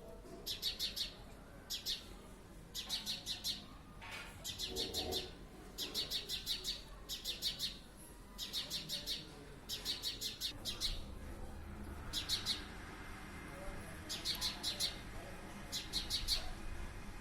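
Sparrow chirping in short runs of quick, high notes, one run about every second.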